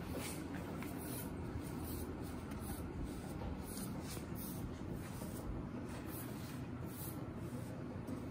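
Grooming brush stroking a horse's coat: soft brushing swishes about once or twice a second over a steady low hum.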